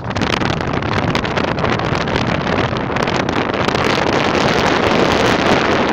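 Wind buffeting the microphone on the deck of a cargo ship under way, in uneven gusts, over a steady low drone from the ship.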